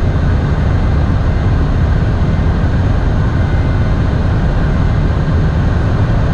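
Steady, loud cockpit noise of an Embraer 190 jet in flight: an even low rush of airflow and engine noise.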